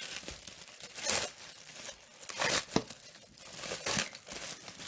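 Plastic bubble wrap crinkling and rustling as hands pull it open and unwrap a knife from it, in several short bursts.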